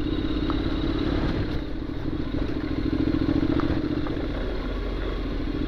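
Honda NC750X DCT motorcycle's parallel-twin engine running at low, steady revs as the bike rolls slowly over a loose gravel lane, with a few faint ticks over the engine note.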